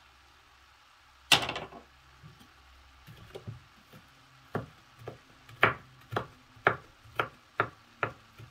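Knife chopping on a wooden cutting board, a steady run of sharp strokes at about two a second, after a single louder knock about a second in.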